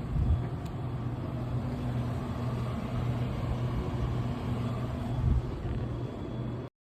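Steady low machine hum over background noise, with a couple of soft knocks; it cuts off suddenly near the end.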